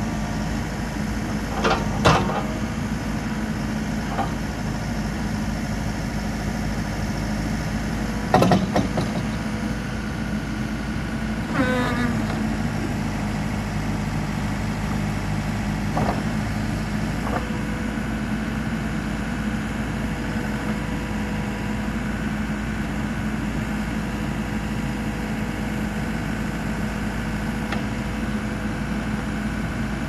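Case 580 Super N backhoe's turbo diesel engine running steadily while the backhoe boom is worked on hydraulics. A few sharp knocks come near the start and about eight seconds in, and a brief falling whine about twelve seconds in. A steady higher hum joins from about seventeen seconds in.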